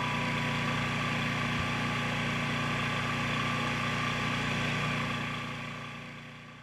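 An engine running steadily at idle, a constant hum with a broad hiss, fading out near the end.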